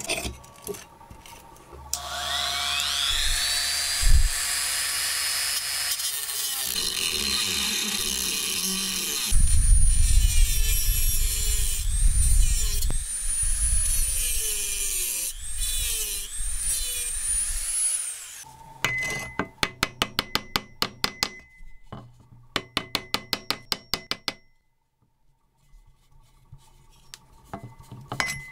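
Dremel rotary tool with a thin cut-off wheel spinning up with a rising whine, then cutting into a hand saw's wooden handle, its high whine sagging and recovering again and again as the wheel bites. After the tool stops, two runs of rapid, evenly spaced ticks.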